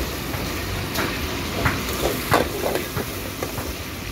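Minced garlic sizzling in oil in a steel wok over the steady rush of a gas burner, with a metal ladle scraping and clinking against the wok a few times in the middle.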